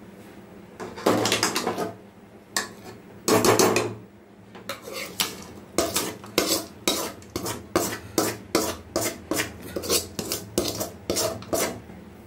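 Metal spoon scraping and tapping a metal pan as sautéed drumstick leaves are emptied out of it into a pot of rice: two longer scrapes in the first few seconds, then a run of quick taps, two or three a second.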